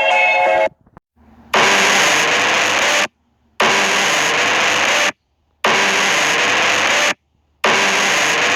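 Emergency alert alarm: four harsh blasts of static-like noise, each about a second and a half long with half-second silences between, a faint rising tone inside each.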